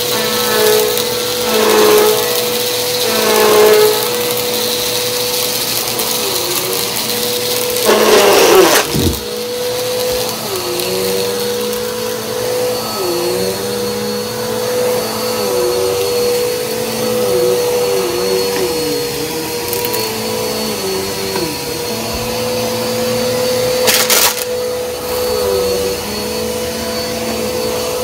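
Vacuum cleaner running with a steady motor whine, its lower tones dipping and wavering. There is a brief loud noisy rush about eight seconds in and another near the end.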